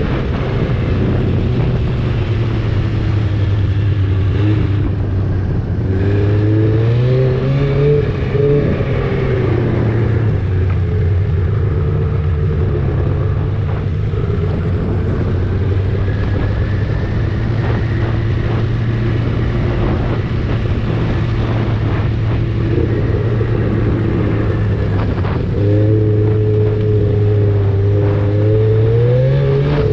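Arctic Cat snowmobile engine running under way along a packed snow trail, its pitch climbing twice as the throttle is opened, around seven seconds in and near the end.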